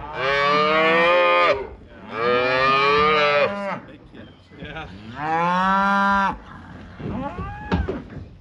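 Cattle mooing: three long, loud calls, each about a second and a half, one after another in the first six seconds.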